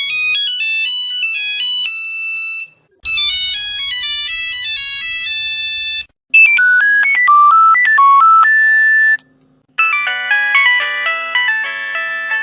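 Four different Nokia mobile phone ringtones play one after another. Each is a short electronic melody of about three seconds, with a brief silence between them; the third and fourth sit lower in pitch than the first two.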